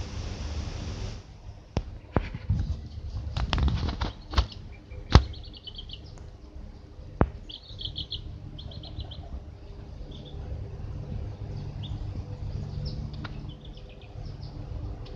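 Chicks and ducklings peeping in short quick runs of high notes, with scattered sharp knocks over a low background rumble; the loudest knock comes about five seconds in.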